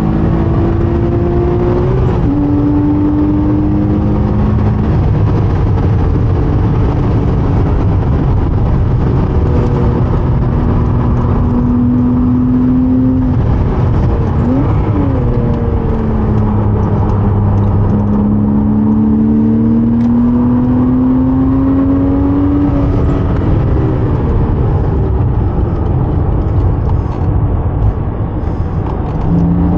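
Porsche 987.2 Cayman S flat-six engine running hard on track, its pitch climbing and falling with speed and gear changes, with a quick drop and recovery about halfway through.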